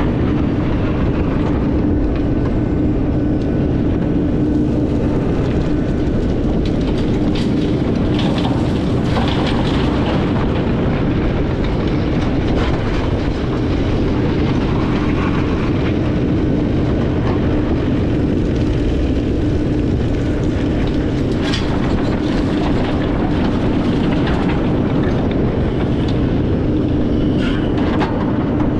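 Takeuchi TB2150 excavator running steadily while loading dirt, a constant engine drone with a steady hum, broken by a few short clanks and rattles.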